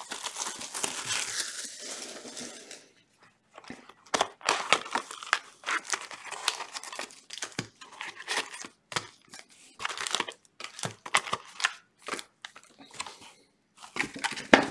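A cardboard retail box of trading-card packs being torn open, then the foil card packs inside crinkling and rustling as they are pulled out and handled in irregular bursts.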